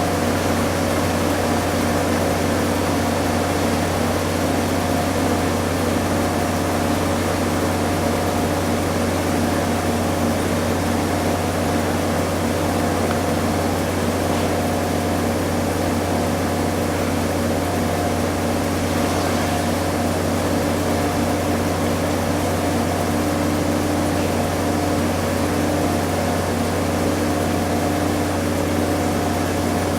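Front-load washing machine in its spin cycle: the drum spinning steadily at speed, giving an even low hum with a few steady whining tones over a hiss.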